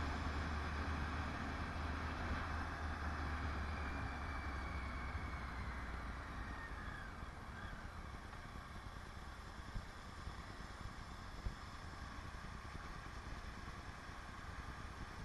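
Motorcycle running along the road with wind noise on the microphone, the low engine hum easing off and getting quieter over the first half. Two short knocks come later.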